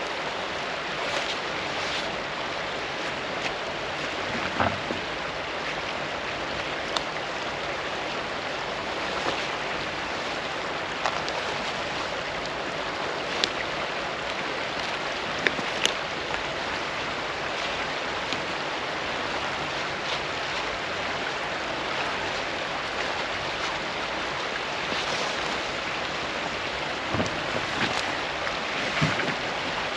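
Steady rushing of river water, with scattered knocks, scrapes and a few low thuds.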